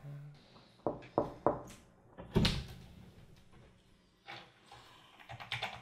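A few sharp knocks and clicks in a small quiet room: three quick ones about a second in, a louder one about two and a half seconds in, and a few softer ones near the end.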